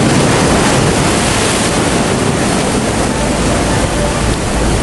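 Loud, steady rush of fast-flowing floodwater, with wind buffeting the microphone.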